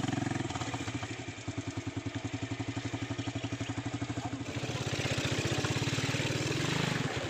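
Motorcycle engine running with a steady, rapid pulse, getting louder with added rushing noise from about halfway through as it pulls harder.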